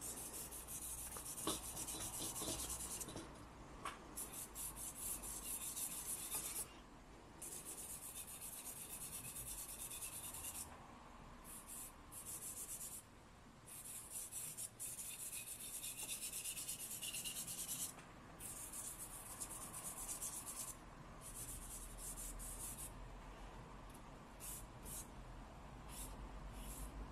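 A charcoal stick scratching across drawing paper in shading strokes, in stretches of a few seconds with short pauses between them. The strokes become shorter and quicker near the end.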